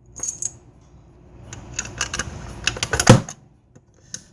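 Irregular clicking and clattering of small hard objects being handled, with a louder knock about three seconds in.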